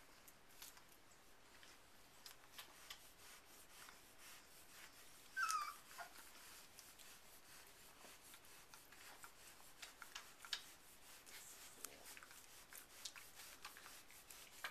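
Airedale puppy giving one short whimper that falls in pitch, about five seconds in, over faint clicks and rustling from four-week-old puppies moving on puppy pads.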